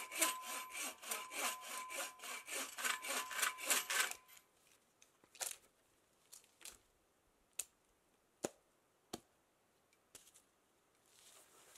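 Hand saw cutting through a log with quick back-and-forth strokes, about five a second, stopping about four seconds in. A few short, sharp snaps or knocks follow.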